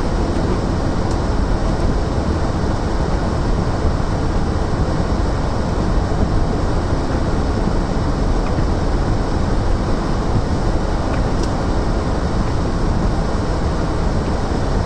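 Steady road and engine noise inside a car's cabin while driving over snow-covered streets, a constant low rumble without breaks.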